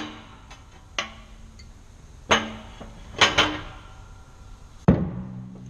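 Metal clanks as a steering knuckle holding its wheel bearing is shifted and turned over on the steel plates of a shop press: about six sharp knocks, each with a short ringing tail, two of them close together about three seconds in.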